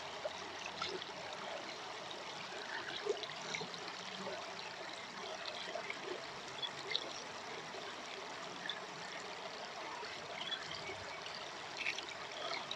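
Creek water trickling steadily, with scattered faint ticks.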